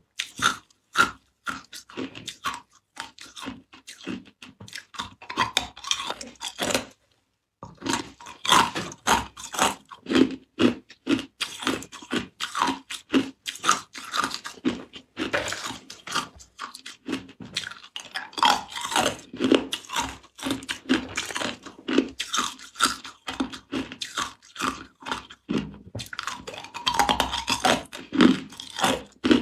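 Ice cubes bitten and crunched between the teeth close to the microphone: a dense run of sharp cracks and crunches, with a brief pause about seven seconds in.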